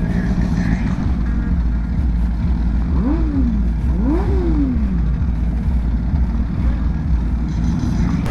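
Kawasaki H2 superbike's supercharged inline-four idling with a steady low rumble, then blipped twice about three and four seconds in, each rev rising quickly and falling away.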